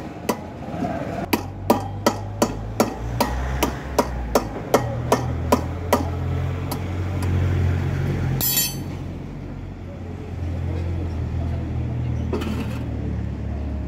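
Hammer blows on a steel drift rod set through the hub of a motorcycle's spoked rear wheel, driving at the wheel bearing: a quick series of metallic knocks, about three a second, that stop about six seconds in. A low steady drone runs underneath, and a short rattle comes a little past the middle.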